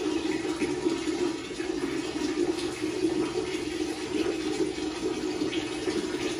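Water running steadily from a tap or hose in a small tiled bathroom.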